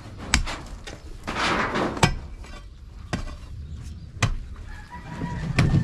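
Metal bar jabbed into packed, rocky soil: five sharp strikes roughly a second apart, with a rush of loose dirt and stones shifting after the first.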